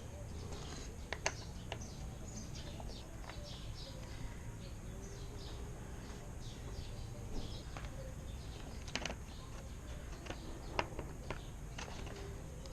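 Small birds chirping again and again in the background, with a few sharp clicks over a steady low hum.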